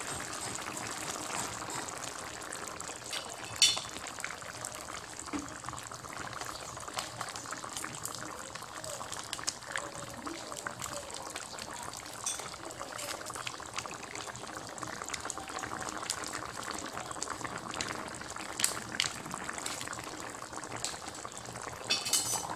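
Chicken and broth simmering in a pan: a steady bubbling with many small pops. A sharp click about three and a half seconds in.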